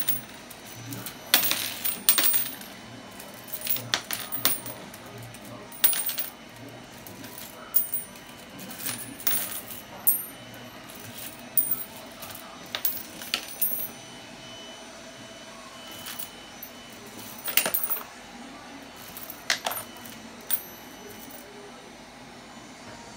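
Loose coins clinking and jingling as a white cockatoo digs its beak through a bucket of change and tosses coins out onto a wooden floor. The clinks come in irregular clusters with short pauses between, and stop near the end.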